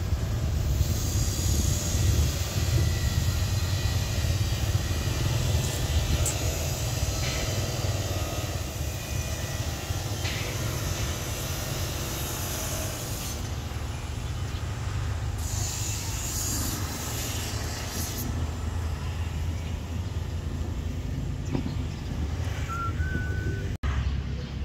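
Steady low rumble of outdoor street traffic, with a couple of brief hissing stretches in the middle.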